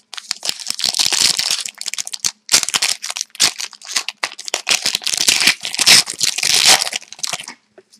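A hockey card pack's wrapper being torn open and crinkled by hand, a dense crackle that stops near the end.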